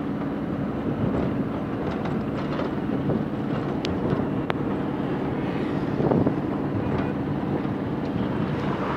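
Steady engine and road noise from a moving vehicle, with wind on the microphone, and a brief swell about six seconds in.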